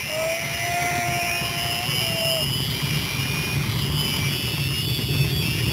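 Zipline trolley pulleys running fast along a steel cable: a steady whirring rumble with a thin, high whine over it, mixed with wind rush. A long steady tone sounds over about the first two seconds.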